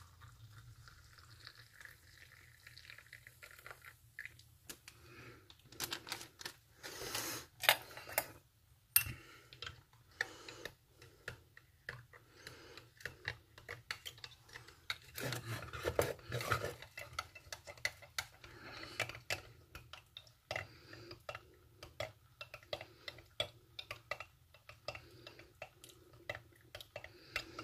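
A spoon stirring coffee in a ceramic mug, clinking and scraping irregularly against the sides, with a denser run of louder clinks a little past the middle.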